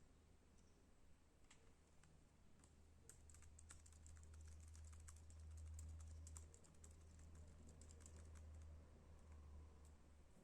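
Faint key presses on an ASUS Zenbook UX425 laptop keyboard, a scattered run of light clicks that is densest in the middle, over a low steady hum.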